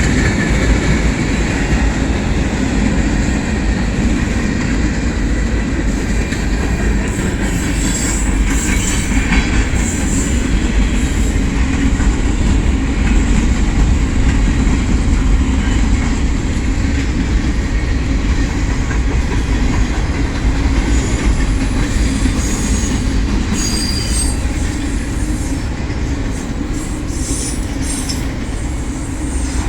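Union Pacific manifest freight train's cars rolling past with a steady rumble of wheels on rail, broken by several brief high-pitched wheel squeals.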